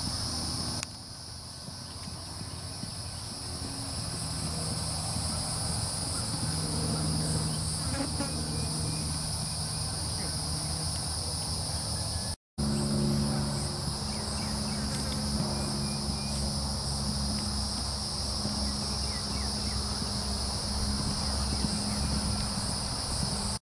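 Steady chorus of insects, a continuous high-pitched buzz, over a low steady hum. The sound drops out for a moment about halfway through.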